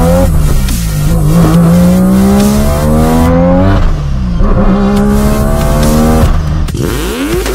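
Turbocharged 20B three-rotor rotary engine of a Mazda RX-7 accelerating hard, its revs rising steadily. About three seconds in there is a brief break for a gear change, then the revs climb again through the next gear. Near the end they drop and swing back up.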